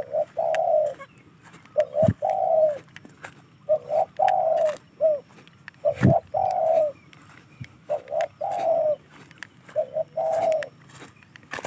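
Cuckoo-dove (uncal) cooing: a short note followed by a longer, falling note, repeated about every two seconds. Two brief low thumps come about two and six seconds in.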